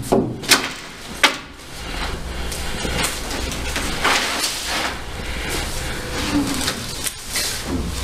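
Props being handled on a stage floor: three sharp knocks in the first second and a half, then softer shuffling and rustling, with another click about seven seconds in, over a steady low hum.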